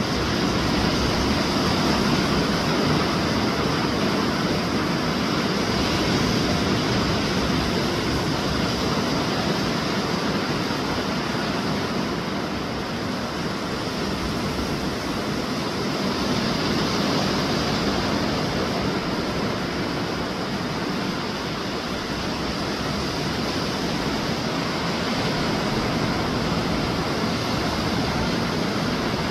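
Steady rushing of surf breaking on a sandy beach, with a rumble of wind on the microphone.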